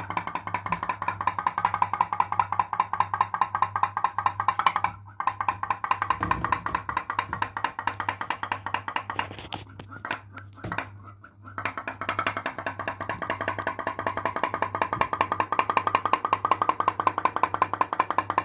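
Home-made pop-pop boat's tin-lid diaphragm boiler popping in a rapid, even stream. It falters and stops briefly twice, around five seconds in and again around ten to eleven seconds, then picks up again. Its boiler is leaking steam around the edges.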